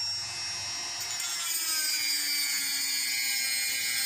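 Handheld rotary tool with a small abrasive cut-off wheel, running at a high whine and cutting through a thin metal plate. From about a second in, a high grinding hiss joins it and the whine sags slowly in pitch as the wheel bites into the metal.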